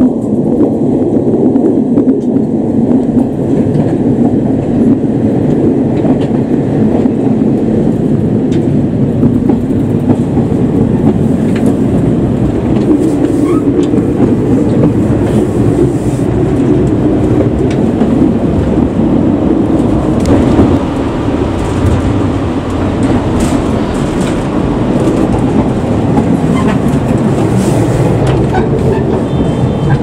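Running noise heard inside a KiHa 40 diesel railcar under way: a loud, steady rumble of the diesel engine and wheels on the rails, with scattered clicks as the wheels cross rail joints.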